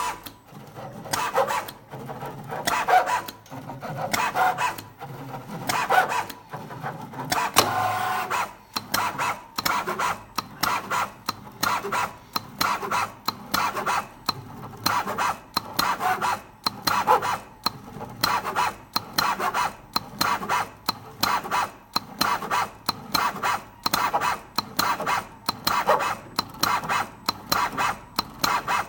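CNC PVC dispenser running, its motors making short, rasping moves over and over: uneven at first, then settling after about nine seconds into a steady rhythm of roughly two to three strokes a second.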